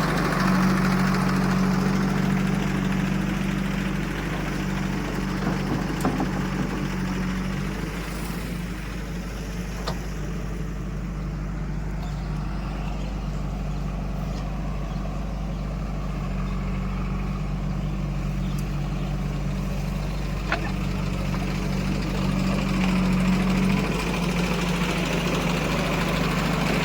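Heavy diesel engine running steadily. It is a little louder at the start and again near the end, with a few faint clicks or knocks over it.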